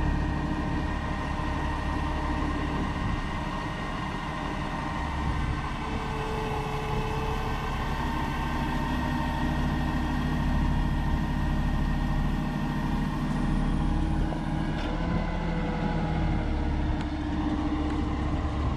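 An engine idling steadily, its tone shifting slightly about 15 seconds in.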